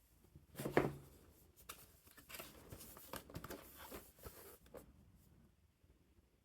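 Handling noises: an irregular run of clicks, taps and rustling, loudest with a knock about a second in, then fading to faint room tone near the end.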